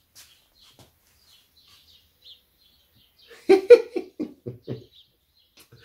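A man's short laugh, a run of about six chuckles that fade out, about three and a half seconds in. Before it, only faint bird chirps.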